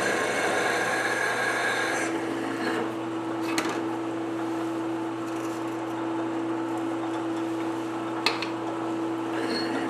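Metalworking machine running with a steady hum while cutting tool steel. A hissing cutting noise in the first two seconds gives way to a steady tone, with two sharp clicks partway through.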